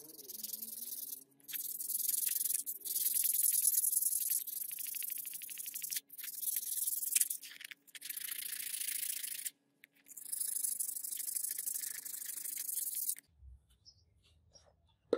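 A steel blade being rubbed and polished by hand: a scratchy hiss in long stretches broken by brief pauses, stopping about thirteen seconds in.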